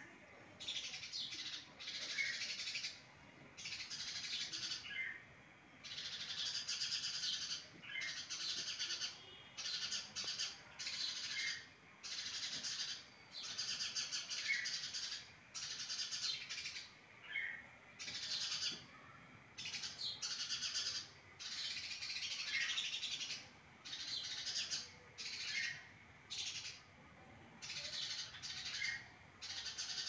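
House sparrows chirping in a fast chatter, coming in repeated bursts of about a second with short pauses between.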